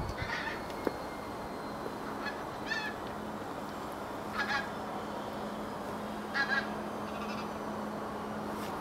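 Geese honking in a handful of short calls spaced a second or two apart, over steady background hiss and a low hum.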